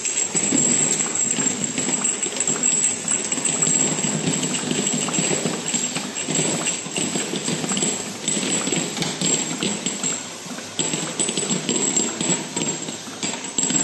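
Automatic labeling machine running: conveyor and guide rollers rattling steadily while rows of clear jars knock and clink against each other and the rails in a dense, continuous clatter, over a thin steady high whine.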